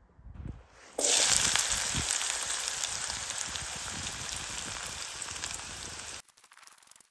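Chopped onions frying in hot oil in a camp pot: a loud sizzle starts suddenly about a second in, eases slowly, and cuts off abruptly near the end.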